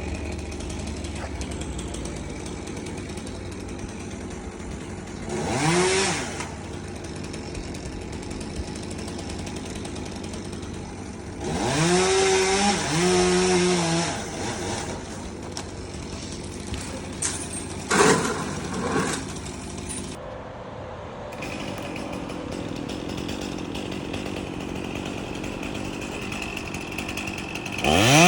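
Chainsaw idling and being revved several times: a short rev about six seconds in, a longer one held for about two seconds midway, and two quick blips soon after, each rising and falling in pitch.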